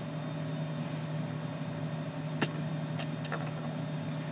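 Steady low machine-like hum of background room noise, with a few faint light clicks a little past halfway.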